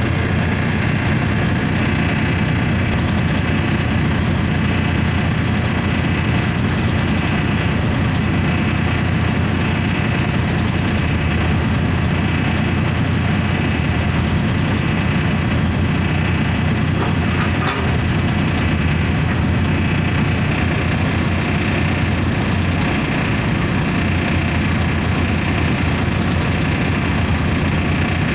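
Komatsu 450 excavator's diesel engine running steadily.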